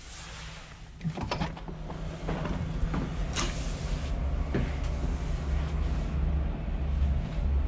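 A balcony door's lever handle and latch clicking and knocking as the door is opened, followed by a steady low rumble of outdoor wind buffeting the microphone that grows louder about halfway through.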